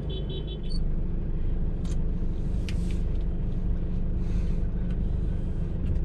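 Motorhome engine running steadily at low speed, heard from inside the cab as a low rumble. A short run of rapid high beeps sounds in the first half second, and a few faint clicks follow.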